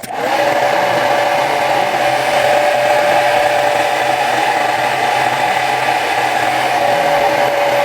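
Handheld hair blow dryer switched on, its whine rising briefly as it spins up, then running steadily with a constant rush of air.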